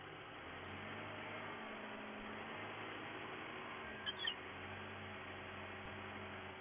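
Volvo BM 646 backhoe loader's diesel engine running steadily, picking up slightly about a second in as it works. A couple of brief high squeaks come just after four seconds.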